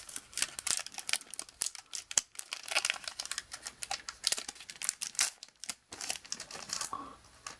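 Plastic-foil booster pack wrapper of Magic: The Gathering cards crinkling and crackling in the hands as the pack is opened, in a dense run of small crackles.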